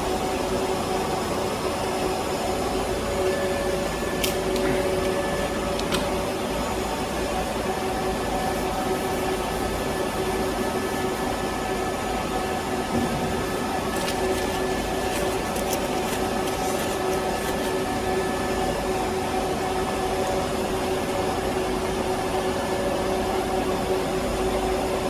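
Plasma welding arc running steadily: a continuous hiss with a steady whine over it and a few faint clicks.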